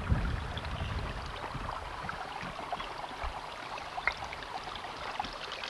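Mountain spring water trickling among loose stones: a steady light rush with small scattered ticks. A brief gust of wind on the microphone at the very start.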